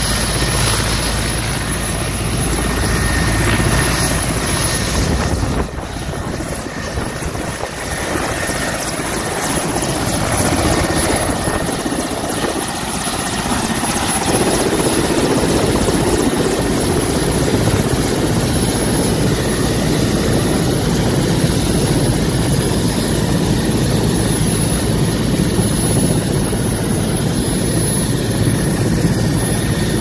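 Mil Mi-8-type helicopter's turbines running close by: a steady, loud rushing noise with a thin high whine over it, dipping briefly about six seconds in.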